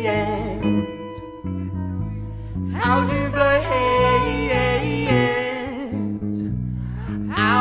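Live band music: a wavering melodic lead line over a steady bass line, with a held chord of steady tones about a second in.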